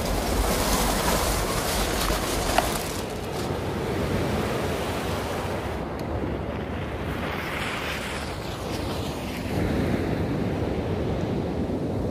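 Sea waves breaking and washing on a beach, surging twice, at the start and again about seven seconds in, with wind buffeting the microphone as a low rumble.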